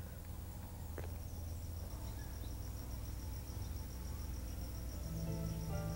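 A cricket trilling: a high, rapid, evenly pulsed chirp that starts about a second in, over a steady low hum. Soft music with long held notes comes in near the end.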